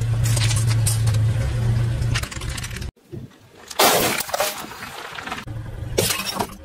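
A car tyre slowly crushing objects, with the engine humming low and steady over crackling in the first two seconds. After a sudden cut, a loud crunch comes about four seconds in, and more crunching and cracking near the end as brittle pieces break under the tyre.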